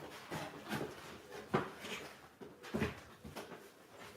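Packaging and box contents being handled: irregular rustling with several light knocks, the loudest about a second and a half in and again near three seconds.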